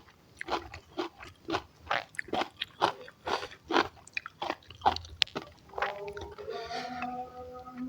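Close-miked chewing of food, with wet mouth smacks and crunches coming about two to three times a second. Near the end, faint held tones of background music come in.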